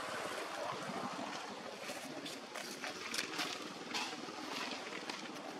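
Outdoor ambience: a steady background hiss with scattered short rustles and clicks, more of them from about two seconds in.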